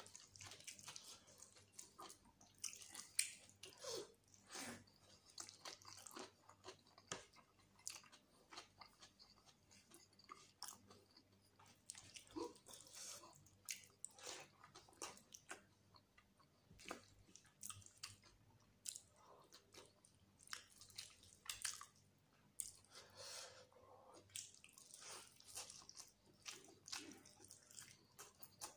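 Quiet, close-miked wet chewing of rice and chicken curry eaten by hand, with many short, irregular sticky clicks from the mouth. Fingers squish rice into the gravy on the plate at the start.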